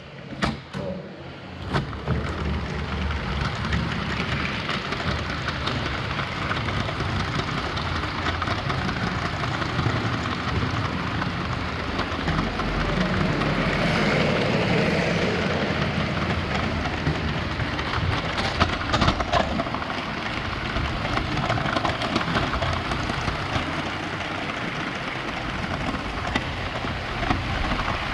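Lego 9V train running on plastic track: a steady rattling rumble of the motor and wheels, with a few sharp clicks about a second in and some louder ticks past the middle.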